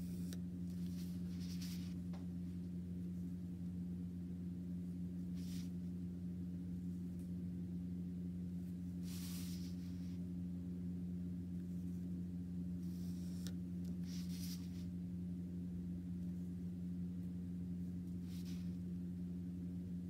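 Steady low hum throughout, with about seven short scratching strokes of a pencil drawing lines along a ruler on paper.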